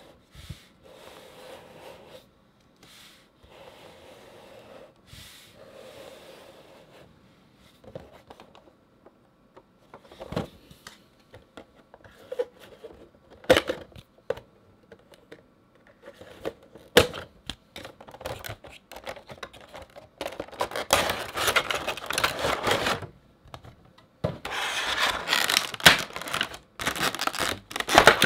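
Hands handling and opening a cardboard Funko Pop box with its plastic insert: soft rubbing at first, then scattered clicks and taps, and near the end two long stretches of crinkling and scraping as the packaging is worked open.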